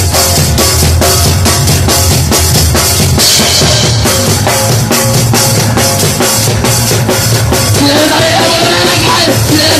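Punk band playing live, loud and dense, driven by a drum kit with bass drum and snare hits.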